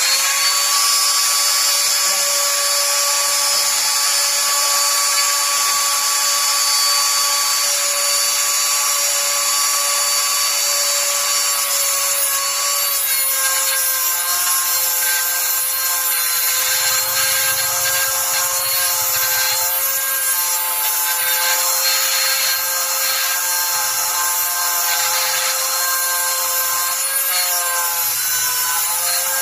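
High-speed electric rotary carving tool running with a steady high whine over a hiss, its bit grinding wood. From about halfway in, the pitch wavers slightly and a rough scraping comes through as the bit bears harder on the wood.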